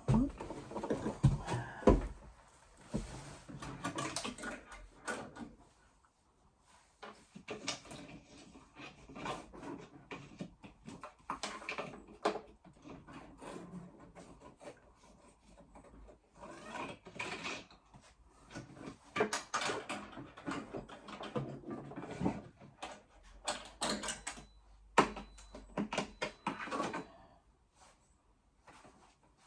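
Irregular rustling, scraping and knocking of hands-on handling work, with a few sharp knocks, the loudest about two seconds in.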